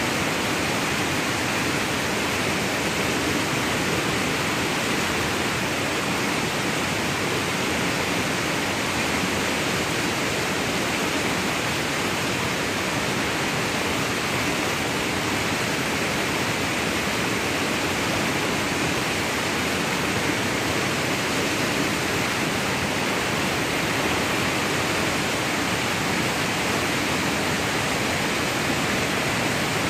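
A river in flood rushing through rapids and around submerged tree trunks: a steady, unbroken rush of churning whitewater.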